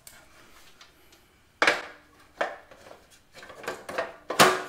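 Belt cover of a Swardman reel mower being fitted back onto the side of the machine: a series of sharp knocks and clacks as it is pushed into place, the loudest near the end.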